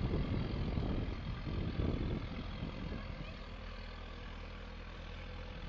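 A JCB's diesel engine running steadily as it pushes through floodwater. An irregular low rumble covers it for the first three seconds, then eases.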